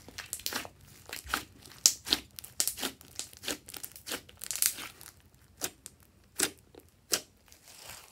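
Hands squeezing, pressing and stretching a large mass of glossy slime, giving a run of sharp, wet clicks and pops, a few a second and uneven, that thin out near the end.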